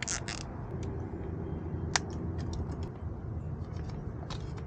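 Small clicks and rustles of hands handling an electric trolling motor's plastic switch unit and its wiring, with one sharp click about two seconds in followed by a few light ticks, over a steady low background rumble.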